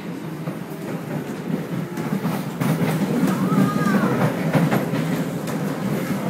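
SMRT C751B metro train heard from inside the car, rumbling over the rails and getting louder about two seconds in as it picks up speed leaving a station. Light rail clicks run through it, with a short rising-and-falling whine about three and a half seconds in.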